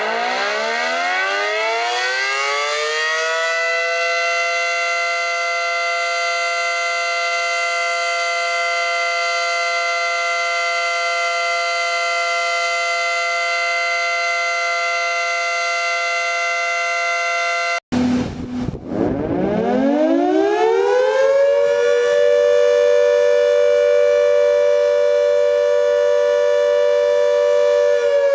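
Outdoor warning siren winding up from a low pitch to a steady, many-toned wail and holding it. About eighteen seconds in it cuts off abruptly, and a siren winds up again and holds its steady wail.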